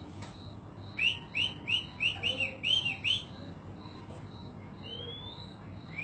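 Caged songbird singing: a quick run of about eight repeated arched chirps, then after a pause a single rising whistled note.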